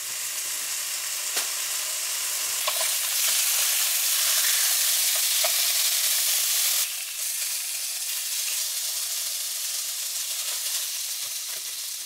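Thin slices of marbled beef sizzling in a hot, preheated nonstick pan, a steady hiss that eases slightly about seven seconds in. A few light clicks of metal tongs on the pan are heard.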